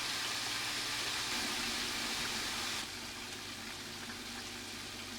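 Steady rushing hiss like running water, with a faint low hum underneath; the hiss drops in level suddenly about three seconds in.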